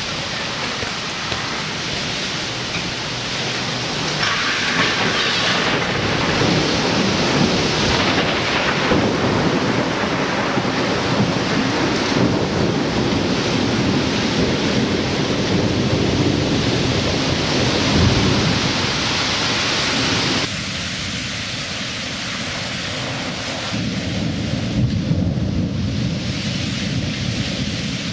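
Torrential storm rain with strong wind, a dense steady rush with deep rumbling underneath. The sound shifts abruptly a few times.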